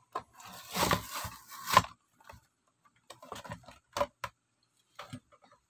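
Cardboard toy packaging being torn open and rustled: about a second and a half of tearing and crinkling, then scattered short clicks and knocks as the box is handled.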